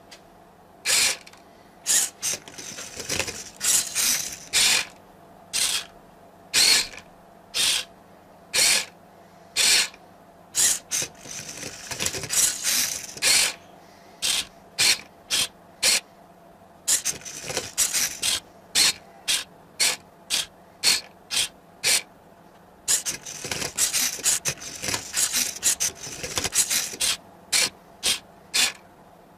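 Arduino-controlled Rubik's cube solving robot at work: its motors move the wooden arm and platform, turning and flipping the cube in a long series of short mechanical moves. They come about one a second at first, then in quicker runs with brief pauses between them.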